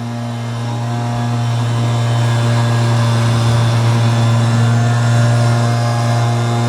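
Leaf blower engine running steadily at a constant high speed, growing louder over the first couple of seconds and then holding.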